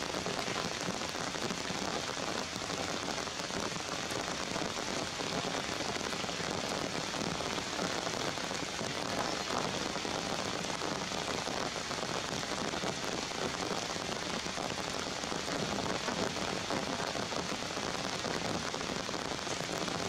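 Steady, even hiss of falling rain, unbroken throughout.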